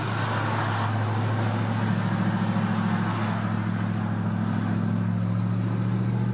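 Ford Mustang 4.6 L V8 with its electronic exhaust valves open, heard from inside the cabin, running at steady, even revs while cruising, over tyre and road noise.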